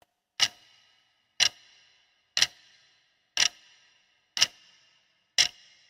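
Ticking: six sharp ticks about a second apart, each with a short ringing tail.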